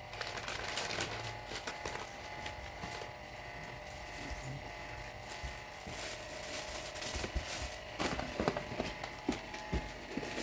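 Gift packaging being handled and unwrapped: rustling and light clicks, with a few sharper knocks near the end.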